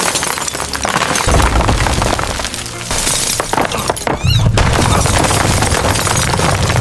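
Earthquake sound effects: things shattering and breaking in a dense clatter, with a deep rumble that swells about four seconds in, over music.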